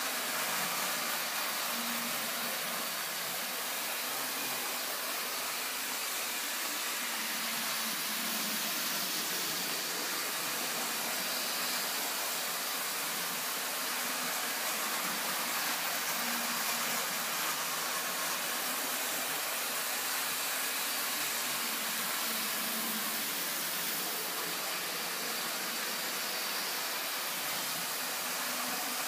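Model electric trains running around a layout: a steady whirring hiss of small motors and wheels on the track, with a faint hum that comes and goes.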